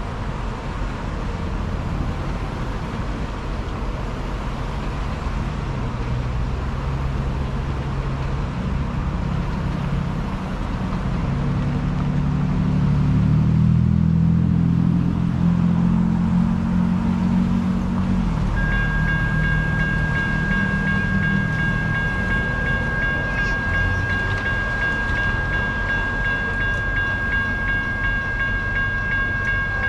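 A low vehicle rumble swells and fades around the middle. About 18 seconds in, the railroad crossing's warning bell starts ringing steadily as the signals activate for an approaching train.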